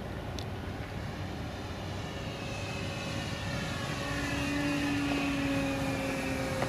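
Electric motor and propeller of a Phoenix Yak 54 radio-controlled aerobatic plane flying past, a whine that grows louder from about the middle and falls in pitch.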